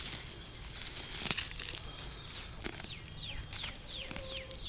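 A songbird singing a run of quick, downward-sliding whistled notes, about two or three a second, starting about halfway through. Before it come crackling and snapping clicks of weeds and dry plant stems being pulled and handled.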